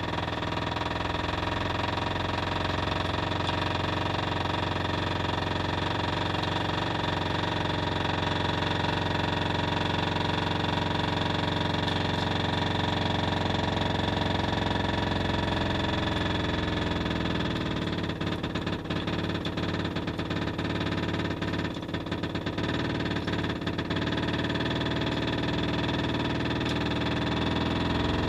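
Air-rotary drilling rig boring a 6-inch hole down through the rock above a cave passage, heard from inside the cave: a steady mechanical drone with many overtones, joined by a spell of irregular knocking about two-thirds of the way in.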